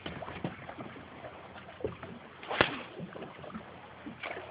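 Water slapping against the hull of a small fishing boat, with scattered light knocks and one sharp knock about two and a half seconds in.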